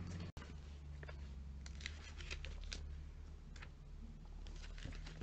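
Glossy catalogue pages being handled and turned: a run of short, crisp paper rustles and flicks in two clusters, over a low steady hum.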